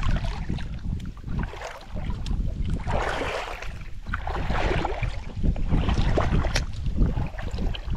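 Wind buffeting the microphone in a steady low rumble, with water sloshing and splashing in separate surges about every second or two.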